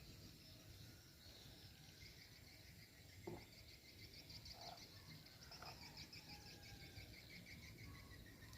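Near silence, with faint, rapid, rhythmic chirping in the background and one light click about three seconds in.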